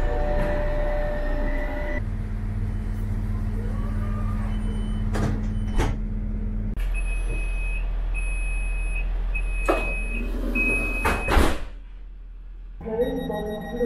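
Train passenger doors in operation: the steady hum of the standing trains, a repeating door-warning beep, and sharp knocks as the door leaves shut, loudest about ten and eleven seconds in.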